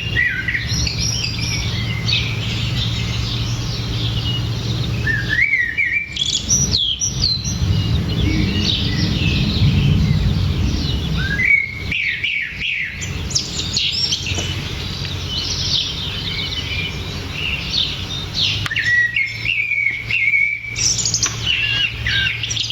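Garden birds singing, several overlapping chirping phrases coming in clusters, recorded in spatial stereo by a 3D microphone, over a steady low background rumble.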